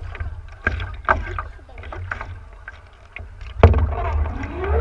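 Paddle strokes and water splashing and slapping against a stand-up paddleboard, over a low rumble of wind and water on the board-mounted microphone; a sharp slap about three and a half seconds in is the loudest.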